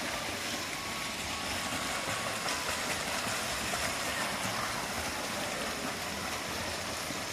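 Steady wash of splashing water from several swimmers sprinting in a pool, their arm strokes and kicks churning the surface.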